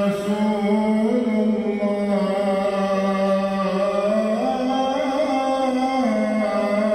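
A man's voice chanting in long held melodic notes, each sustained for a second or two before stepping up or down in pitch.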